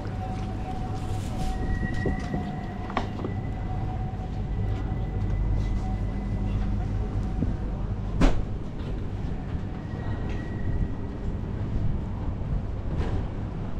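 A tram running by: a steady low rumble with a held whine from its drive, which fades after about seven seconds. A single sharp knock comes a little past eight seconds in.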